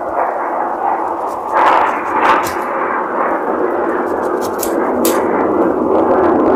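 Close-up handling noise of a jackfruit being turned and cut with a knife on a granite counter: steady rough scraping with a few sharp knocks.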